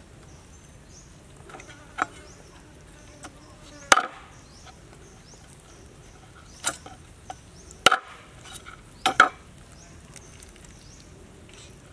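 Cleaver chopping through a fish head onto a wooden cutting board: single sharp knocks a second or two apart, two in quick succession near the end. Insects buzz faintly behind.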